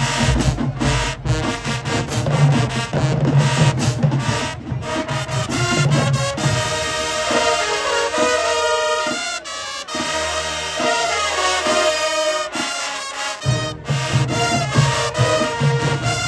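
Middle school band playing, with brass carrying the tune over a low bass-and-drum beat. About six seconds in the low end drops out for a lighter passage of held brass notes, and the full band comes back in near the end.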